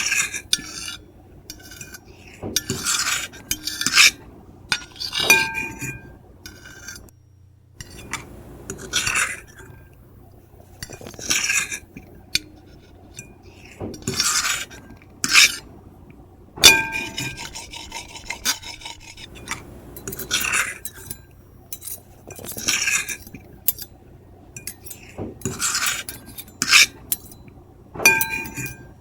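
Metal fork and knife scratching and scraping on a ceramic plate in irregular strokes, some drawn out for a second or more, some quick and short, a few with a brief high ringing squeal.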